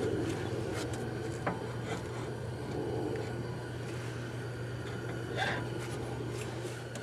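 Steady low background hum with a couple of light knocks, about a second and a half in and again near the end, as a car's outer tie rod end is handled and lined up with the steering knuckle.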